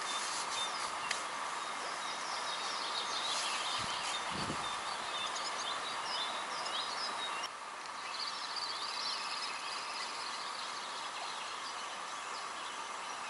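Songbirds chirping and singing over a steady outdoor background hiss, with a brief low rumble about four seconds in.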